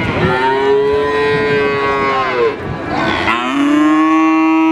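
Cattle mooing loudly: two long moos, the first dropping in pitch as it ends about halfway through, the second starting after a short gap and held steady to the end.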